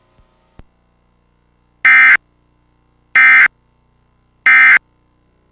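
Emergency Alert System End of Message signal: three short, identical bursts of high-pitched SAME digital data tones, evenly spaced about a second and a quarter apart, marking the end of the warning broadcast.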